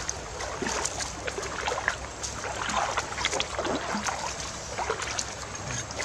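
Shallow stream water sloshing and trickling around river stones, with scattered sharp clicks of stones knocking underfoot on the gravel.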